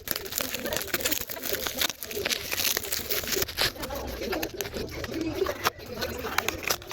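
Plastic packaging crinkling and rustling as a parcel is handled and opened, with many small crackles throughout and a low wavering sound underneath.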